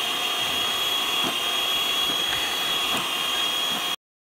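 Electric hand mixer running steadily with a high whine, its beaters working through cream and condensed milk that is still stiff from an overnight freeze, with a few faint knocks along the way. The sound cuts off abruptly near the end.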